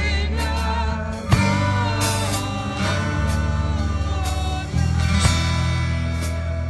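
Christian gospel song played with a band and a singer: sustained bass notes changing every couple of seconds under a wavering vocal melody, with regular drum hits.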